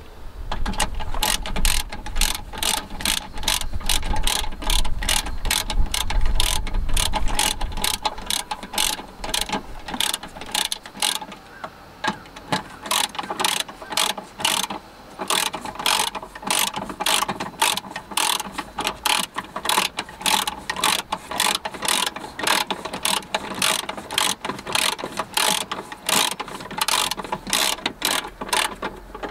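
Hand socket ratchet wrench being worked back and forth, a steady run of sharp clicks about two to three a second, as bolts are turned while the battery mount is fitted.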